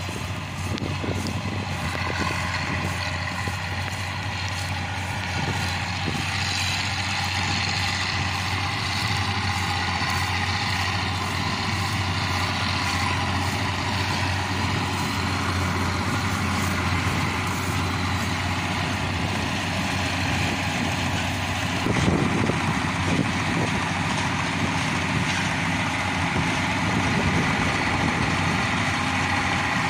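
Bizon ZO56 combine harvester's six-cylinder diesel running steadily under load while harvesting, with the clatter of its threshing and straw-handling machinery, slowly growing louder as it approaches. A brief louder knock about two-thirds of the way through.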